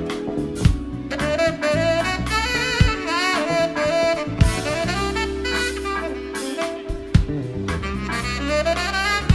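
Tenor saxophone solo of fast runs and bent notes over a jazz-funk big band, with bass, drums and held backing chords underneath.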